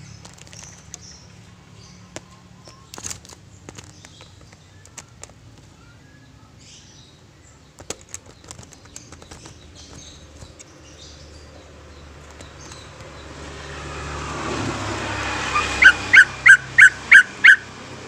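Cucak ijo (greater green leafbird) moving about its wire cage, with small clicks and short chirps. Near the end a rushing sound swells up, followed by seven loud, sharp, evenly spaced notes, about four a second.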